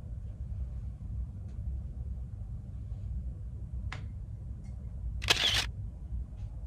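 Camera shutter click about five seconds in, with a smaller sharp click a second earlier, over a steady low hum.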